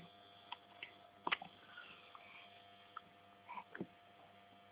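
Quiet room tone with a faint steady electrical hum and a few soft clicks and small brief sounds.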